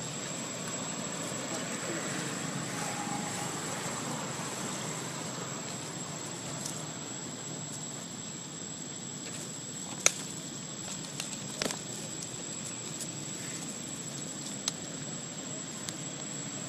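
Steady outdoor background rush with a constant thin high-pitched whine over it, broken by a few short sharp clicks, the loudest about ten seconds in.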